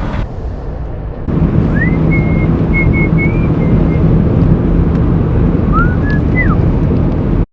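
Car running, heard from inside, with a steady engine hum that steps up about a second in. Over it, two high thin whistle-like tones slide up and hold, one long and one short.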